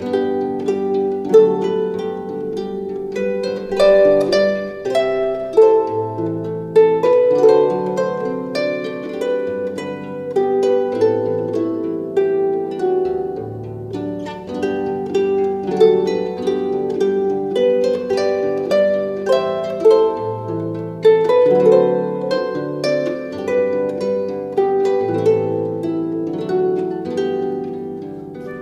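Background music: a busy run of plucked, ringing notes over a lower line of longer bass notes.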